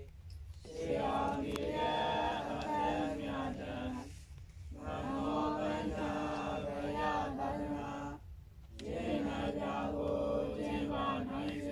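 Group of Buddhist monks chanting together in unison, in phrases of a few seconds each, with short pauses for breath between them.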